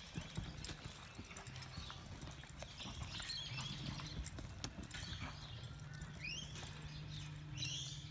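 Horse's hooves thudding and scuffing in soft arena sand as it darts, stops and turns to hold a cow, with irregular hoofbeats throughout.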